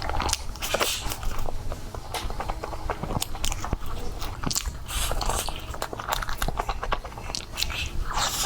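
Close-miked ASMR eating: bites and chewing of dessert, with many irregular wet clicks and crackles.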